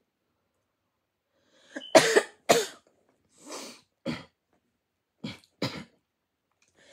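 A person coughing: two loud coughs about two seconds in, then a breath and three smaller coughs.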